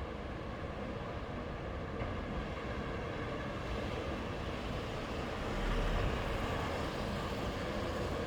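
Sea waves washing onto a beach in a steady rush of noise, swelling louder as a wave comes in about two-thirds of the way through.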